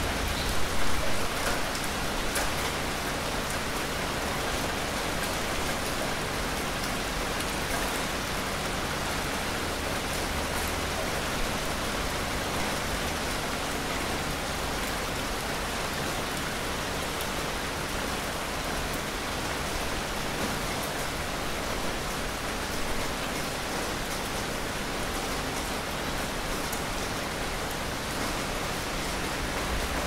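Steady rain falling, an even hiss with a few sharper drop ticks, a little louder about a second in.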